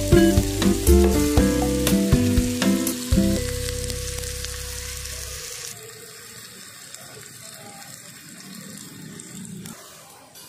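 Chopped onions sizzling as they fry in oil in a pan. Background music with a bass line plays over it and fades out in the first few seconds, leaving the sizzle alone, which grows fainter toward the end.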